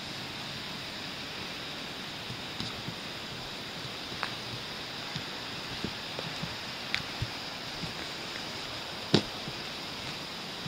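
Steady hiss with scattered light clicks and scuffs of footsteps on a gritty stone roof, and one sharper knock about nine seconds in.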